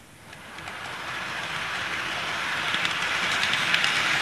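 KATO N-gauge 205 series model electric train pulling away from a station on the layout, its running noise on the track swelling quickly as it makes a very abrupt, fast start. Rapid clicking sets in from about three seconds in.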